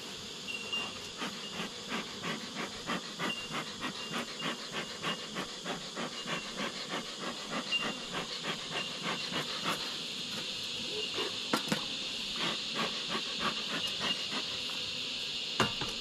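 Bee smoker bellows being pumped: a quick, even run of hissing puffs, about three a second, that stops about ten seconds in, followed by a few scattered puffs. Insects chirp steadily underneath.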